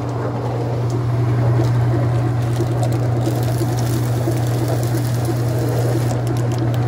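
Whirlpool direct-drive top-load washing machine running with its agitator moving: a steady motor hum with an even mechanical noise over it.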